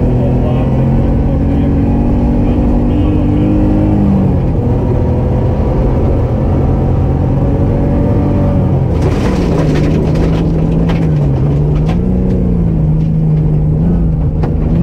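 Rally car engine heard from inside the cabin, running hard on a gravel stage; its note falls about four seconds in and drops again near nine seconds, then holds steady. From about nine seconds on, a rush of gravel noise with many sharp clicks of stones striking the car.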